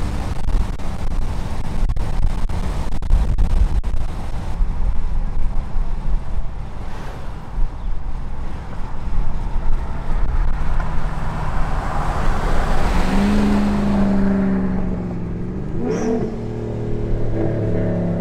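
Chevrolet Silverado pickup driving on a city street, heard from inside the cab: road and wind rumble with buffeting at first, then the engine's steady drone coming through, with a short rise in pitch near the end.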